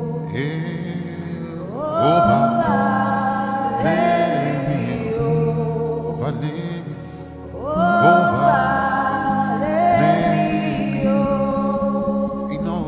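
Gospel worship music with singing and long held chords. The sung phrases swell about two seconds in and again near eight seconds.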